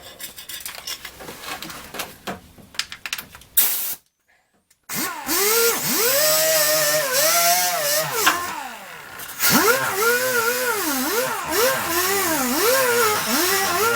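Scraping and clicking at the exhaust flanges, then a power tool cleaning the flanges runs, its pitch dropping and rising again and again as it is pressed against the metal and eased off.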